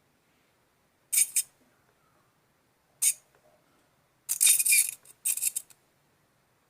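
Electric arc crackling and sputtering as a homemade 12 V battery welder sparks across two wire ends: a short burst about a second in, another at about three seconds, then a longer sputtering spell in two parts near the end.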